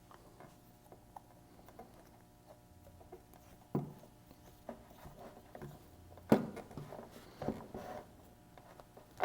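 Pipe fittings and tools being handled on a bench: scattered light clicks and taps, with a sharper knock about four seconds in and a louder one a little after six seconds.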